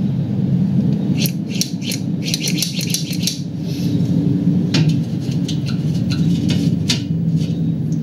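Metallic clicking and rattling from a grease gun being worked at a garage door's steel track, in two spells of quick clicks, over a steady low hum.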